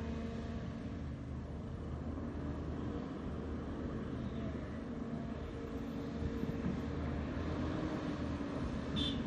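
Diesel engine of a Volvo EC290B LC excavator running steadily as it swings and dumps loads of earth into a dump truck. Its pitch rises a little about two seconds in and again near eight seconds as the machine works under load.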